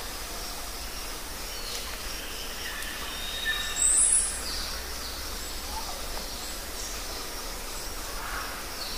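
Forest ambience: a steady hiss of background with scattered faint bird calls. About four seconds in, one loud, very high chirp rises and falls.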